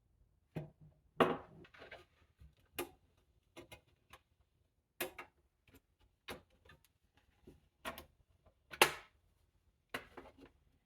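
Irregular clicks and knocks of hands and tools handling a Dell Inspiron 3030 small desktop computer's case, with two louder knocks about a second in and near the end.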